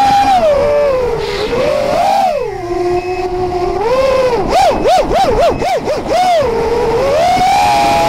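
FPV quadcopter's RMRC Blue Series 2600 kV brushless motors and propellers whining, recorded by the onboard camera. The pitch drops as the throttle comes off, holds low for about a second, then swings up and down half a dozen times in quick throttle blips before rising back to a steady high whine.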